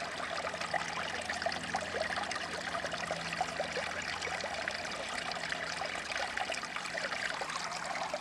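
Shallow stream water babbling and trickling over rocks, with a faint steady low drone from an aircraft overhead.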